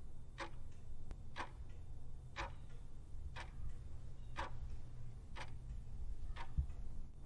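Clock ticking once a second, seven ticks, over a steady low hum: a countdown sound effect timing the seconds given to answer a puzzle.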